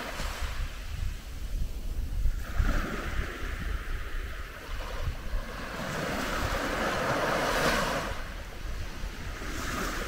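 Calm Mediterranean sea waves washing onto a sandy beach, the surf swelling and fading twice. Wind rumbles on the microphone underneath.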